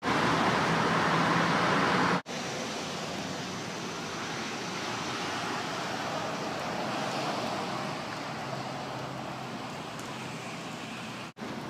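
Steady outdoor background noise with no distinct events, louder for the first two seconds and broken twice by brief dropouts at edit cuts.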